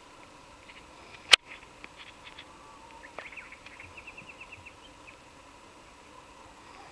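Birds chirping in the background, with a fast trill of about a dozen short, evenly spaced notes around the middle. A single sharp click just over a second in is the loudest sound.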